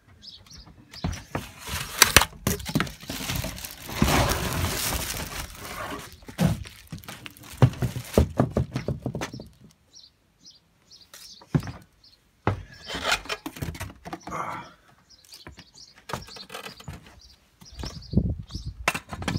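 Clear plastic film wrapping crinkling and rustling around a moulded plastic tractor seat as it is handled and unwrapped, in irregular bursts with short pauses, with scattered knocks of the seat being moved.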